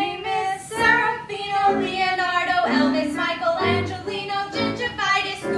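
Women's voices singing a campy show tune, the words sung in quick phrases.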